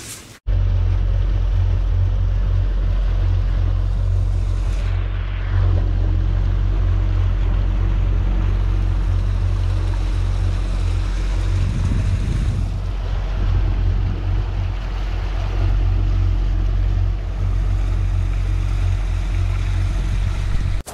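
Small outboard-powered fishing boat under way: the motor running steadily while water rushes in the wake and wind rumbles on the microphone.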